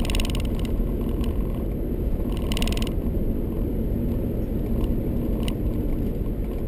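Steady low road and engine rumble inside a moving car's cabin, broken twice by a short burst of rapid rattling, near the start and about two and a half seconds in, and by a single click a few seconds later.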